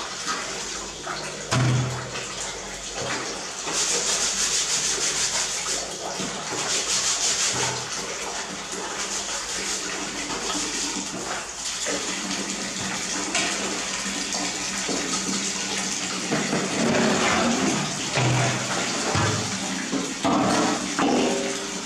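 Water sloshing and splashing: hands scrubbing laundry in a large aluminium basin and a small monkey splashing in a bucket of water, with a few low thumps.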